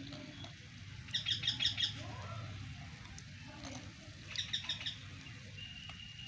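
A small bird chirping: two quick series of rapid, high-pitched notes, one about a second in and another about four seconds in.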